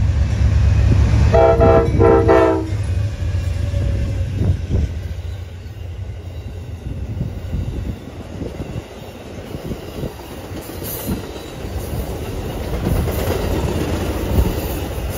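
Amtrak Silver Meteor passenger train passing at speed. The locomotive rumbles, and its horn sounds a chord in two short blasts about a second and a half in. Then the cars roll by with a steady clickety-clack of wheels over the rail joints.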